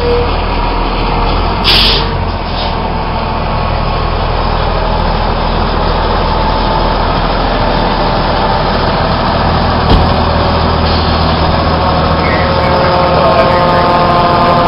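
Diesel engine of a fire truck running steadily close by, a deep even rumble. A short hiss cuts in about two seconds in, and a single sharp knock sounds about ten seconds in.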